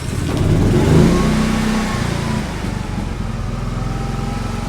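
GenMax inverter generator's small engine just after its push-button start, revving up over the first couple of seconds and then settling into a steady run.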